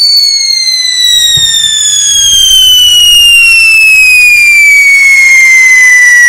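Ground whistling firework burning on the ground: one loud, continuous shrill whistle that slowly falls in pitch.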